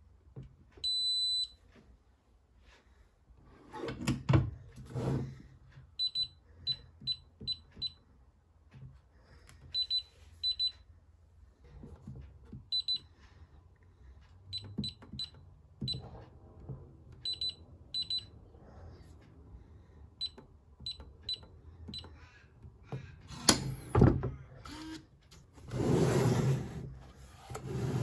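Biometric pistol safe's keypad beeping: one longer beep, then many short, same-pitched beeps in quick runs as its buttons are pressed, mixed with clunks and handling knocks on the safe's case. A louder clunk comes late on, followed by a rustling scrape.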